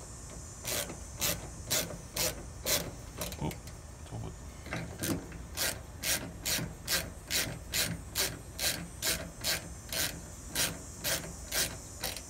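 A ratchet wrench clicking in repeated strokes, about two a second, as it turns the service valve stem on a ductless mini split's outdoor unit. The valve is being opened to release the R-410A charge into the line set.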